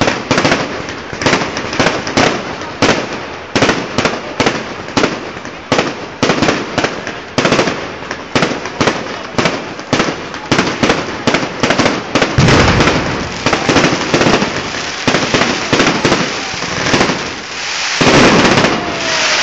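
Amateur fireworks going off in rapid succession, sharp bangs about three a second. About two-thirds of the way through they grow denser and louder, and a big burst goes off near the end.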